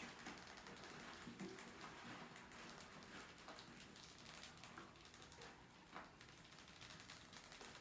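Near silence with faint scattered ticks and scratches from a mouse's claws on a wire fan guard and wooden ramp.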